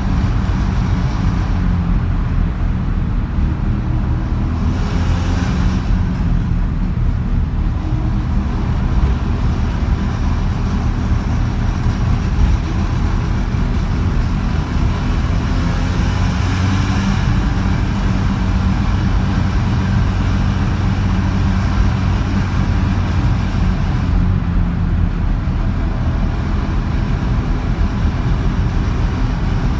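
Ported Mazda 13B rotary engine with a Weber 48 carburettor, headers and a one-off exhaust with an inner silencer, running steadily as the car drives. Two brief rushes of higher-pitched noise swell up about five seconds in and again around seventeen seconds.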